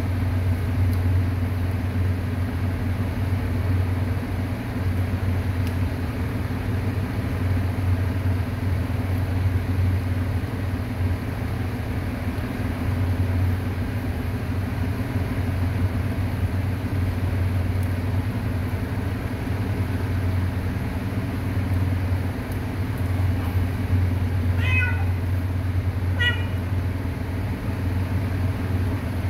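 A steady low hum throughout, with a cat meowing twice, short calls about a second and a half apart near the end.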